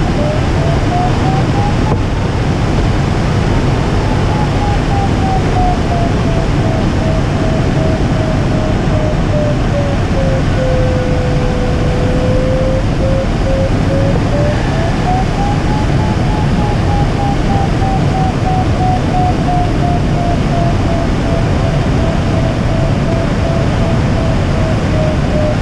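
Glider variometer's audio tone, rising and falling slowly in pitch as the climb rate changes, beeping rapidly in its higher stretches and holding a steady lower tone in between, which is the sign of circling through a thermal's stronger and weaker lift. Behind it, a loud steady rush of air over the canopy.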